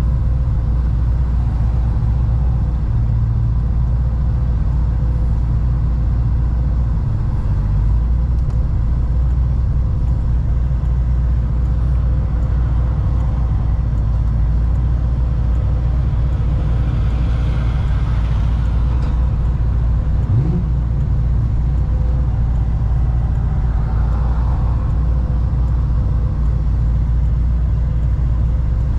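Modified 1000 hp C6 Corvette ZR1's supercharged V8 at a steady cruise, a deep continuous rumble with road noise. A brief hiss swells a little past the middle.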